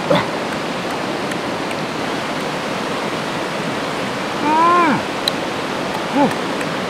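Fast-flowing rocky stream rushing steadily, with a man's short wordless vocal sounds: a half-second falling one a little past halfway and a shorter one near the end.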